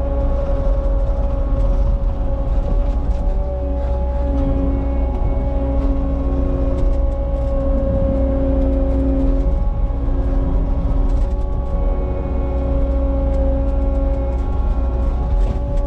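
Cat 279 skid steer's diesel engine running steadily under work, a deep rumble with a steady whine over it. A lower hum comes in twice and drops away again.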